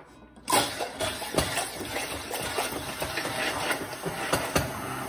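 A Braun immersion hand blender switches on about half a second in and runs in a plastic beaker. It whirs steadily with many sharp, irregular knocks as it blends garlic, egg and salt into the base of an alioli emulsion.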